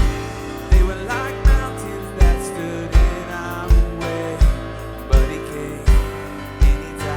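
Live worship band music: a kick drum hitting on every beat, about 80 beats a minute, under sustained piano chords.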